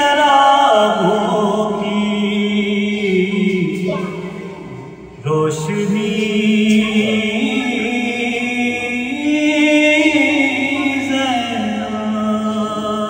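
Unaccompanied male voice chanting an Urdu marsiya in the soz style, drawing out long, wavering held notes. The chant dips briefly about five seconds in, then comes back in suddenly.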